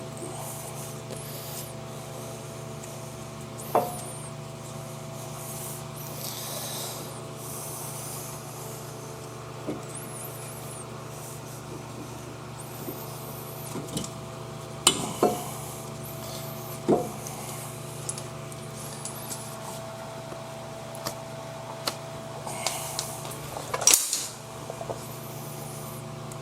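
Brake caliper slide pins being handled and greased: scattered metal clicks and knocks with some rubbing, the sharpest knocks about 4, 15, 17 and 24 seconds in, over a steady hum.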